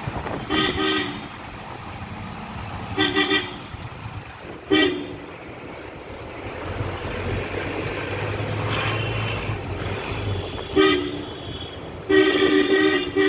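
Car horn honking about five times in short toots, the last one held for over a second, over the steady noise of a car driving, heard from inside the car.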